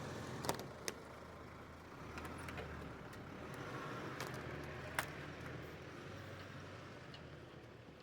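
A 4WD vehicle driving with steady low road and engine rumble, and a few sharp knocks and rattles, the loudest about halfway through.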